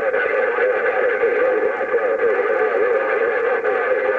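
A CB radio receiver on the 11-metre band passing a steady rush of band noise, with the wavering, garbled voices of distant stations buried in it.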